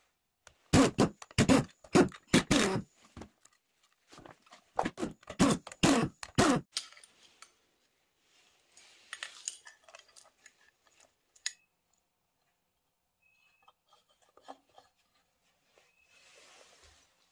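Two spells of loud, irregular metallic clanks and knocks from engine parts and tools being worked on a bench. These are followed by quieter scattered clicks and light taps as a steel bar-type puller is handled and fitted to the crankshaft end.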